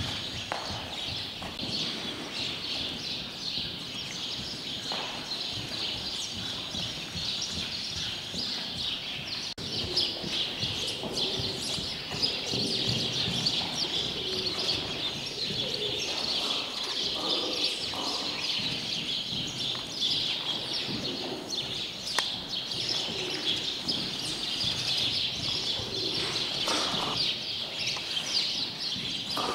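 Small birds chirping busily and without a break, a high-pitched chatter, over the hoofbeats of a horse trotting on sand.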